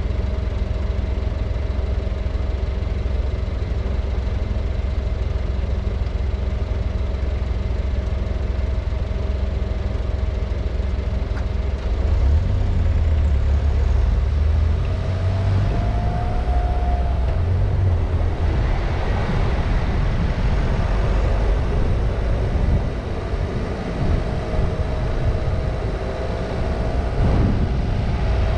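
Car engine idling steadily, then pulling away about twelve seconds in, with engine rumble and then road and tyre noise growing as it drives on.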